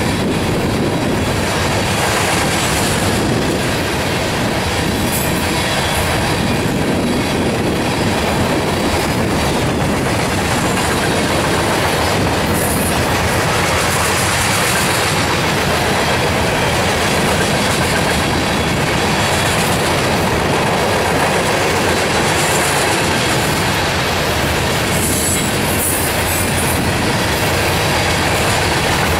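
Covered hopper cars of a freight train rolling past: the steady rumble of steel wheels on rail with a clickety-clack over the rail joints. Brief high wheel squeals come about midway and again near the end.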